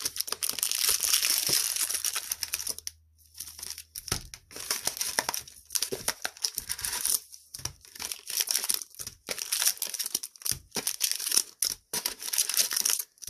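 Trading-card booster-pack wrappers crinkling and rustling as the packs are handled, in irregular bursts with short pauses and a few soft low thumps.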